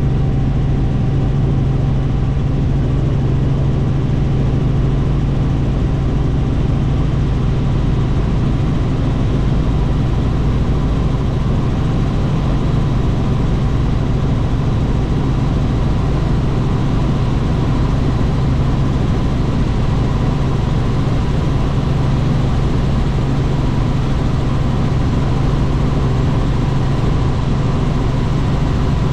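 Helicopter in flight heard from inside the cabin: steady engine and rotor noise with a low hum, unchanging throughout.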